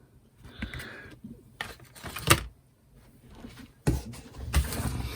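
Craft supplies and their plastic packaging being handled on a desk: a few scattered taps and clicks, one sharp click about two seconds in, then rustling and shuffling near the end.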